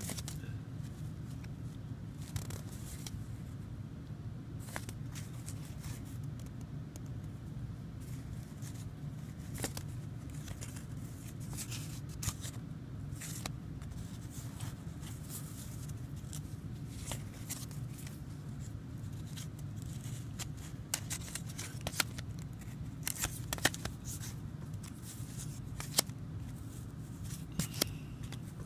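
View-Master reels in paper sleeves being handled and shuffled by hand: scattered light clicks and paper rustles, busier in the second half, over a steady low hum.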